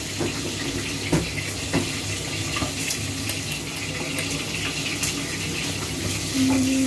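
Hot oil sizzling steadily as chicken deep-fries, with a couple of sharp clicks in the first two seconds.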